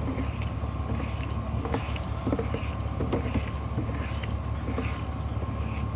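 Sewer inspection camera being pushed along a drain line: a steady low hum with scattered light clicks and knocks.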